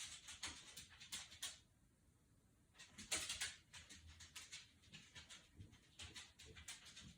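Budgerigar chattering softly in quick, short high chirps and warbles, with a brief pause about two seconds in and a louder burst about three seconds in.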